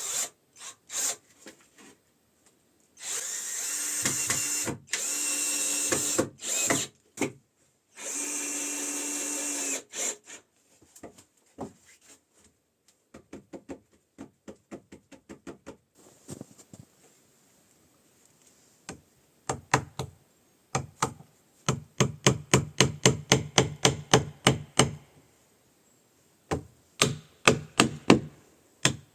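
Power drill running in three bursts of a few seconds each, then quick runs of hammer blows on wood, several a second.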